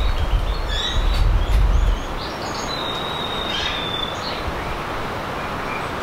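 Steady outdoor background noise with a low rumble that cuts off about two seconds in. Other birds chirp over it, with one held whistle lasting about a second around the middle.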